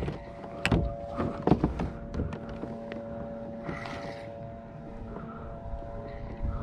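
Scattered knocks and clicks of fishing gear being handled on a plastic kayak, several in the first two seconds, over a faint steady hum of several held tones.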